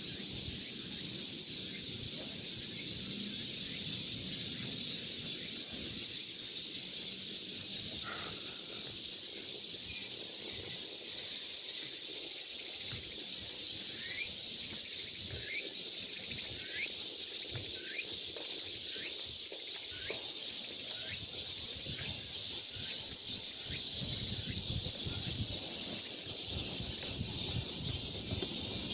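Summer forest ambience: a steady, high-pitched insect chorus, with a bird giving a run of about ten short falling notes, under a second apart, midway through.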